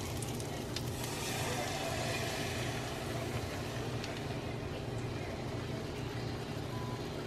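Butter and chopped garlic sizzling in a hot pan while cream is poured in from a carton. The sizzle eases after about four seconds as the cream covers the pan. A steady low hum runs underneath.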